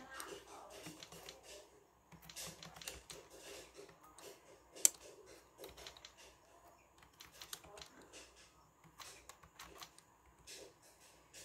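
Typing on a compact B.O.W keyboard with round keycaps: an irregular run of light key clicks, with one much sharper click about five seconds in.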